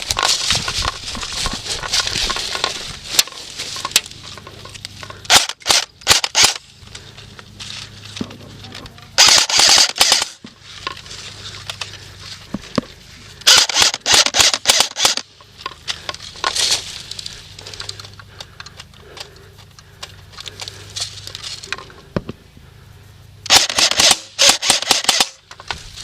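Airsoft guns firing in rapid bursts of sharp clicking shots, several bursts of one to two seconds each with pauses between.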